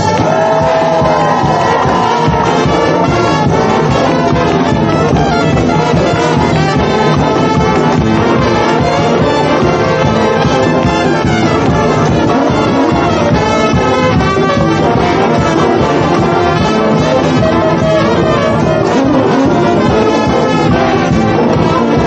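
Brass street band playing loudly: horns over a steady drum beat.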